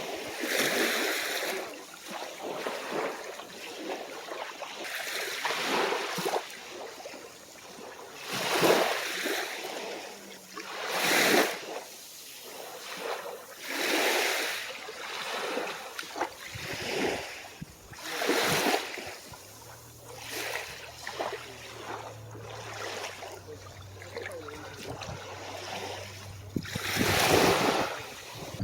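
Small waves breaking and washing up the shore in repeated surges every few seconds, the loudest about a third of the way in and near the end.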